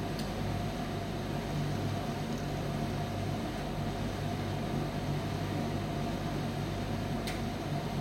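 Commercial Primus tumble dryer running, a steady hum and whir of the turning drum and fan, with a faint click about seven seconds in.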